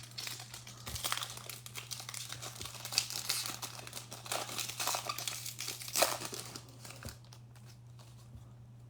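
Trading card packs being torn open, their plastic wrappers crinkling and crackling, with two sharper rips along the way. The rustling dies down near the end.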